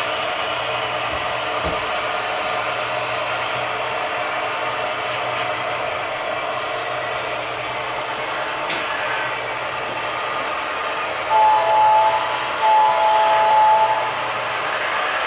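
Horn of an HO scale DCC sound-equipped model locomotive, sounded twice near the end, the second blast a little longer, each a chord of several steady notes. Underneath is a steady background hum.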